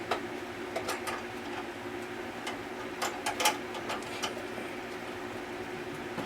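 A few sharp metal clicks and clinks as the toaster-oven rotisserie is handled, the loudest cluster about three seconds in, over a steady low hum.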